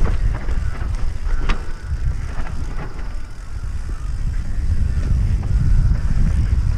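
Wind buffeting a helmet camera's microphone while a mountain bike descends a dirt singletrack, with scattered clicks and rattles from the bike over the rough ground.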